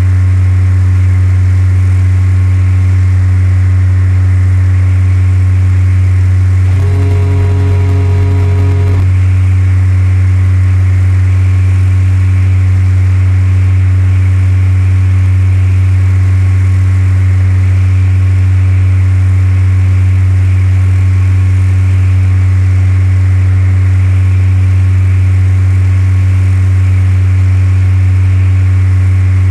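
Cessna 172's piston engine and propeller running steadily, a loud, even drone. About seven seconds in, a pitched tone sounds over it for about two seconds and then stops.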